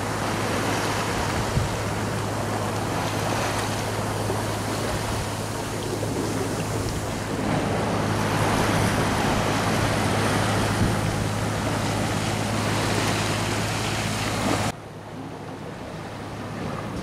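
A boat's engine running with a steady low drone, under wind on the microphone and seawater rushing past the hull. Near the end the drone cuts off abruptly, leaving quieter wind and water.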